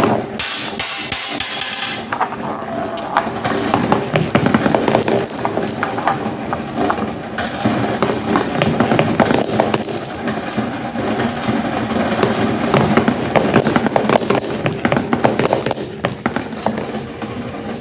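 Marbles rolling down a marble run: a continuous rolling rumble with a dense stream of clicks as the marbles knock against the track and each other.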